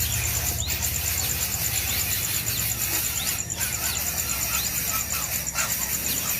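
Baby birds in the nest giving short, high, rising begging chirps, spaced irregularly about one or two a second, as they beg for food.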